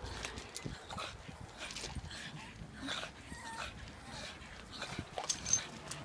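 Dogs scuffling about on loose gravel, stones crunching and clicking under their paws, with a brief whine from a dog about three and a half seconds in.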